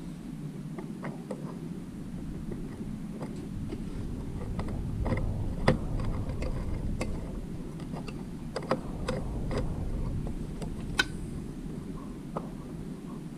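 Irregular small metallic clicks and taps of a flat screwdriver and tiny screws being worked loose from a Consew 226 industrial sewing machine's hook area, about a dozen in all, over a steady low hum.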